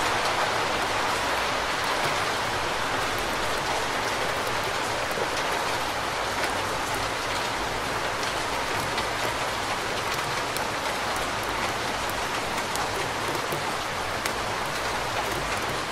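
Steady rain falling: a dense, even hiss with scattered sharper drop taps.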